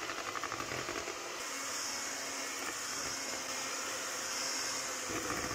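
Beko electric hand mixer running, its twin beaters whisking flour into a thick chocolate brownie batter in a bowl. The motor noise pulses for the first second or so, then runs steadily.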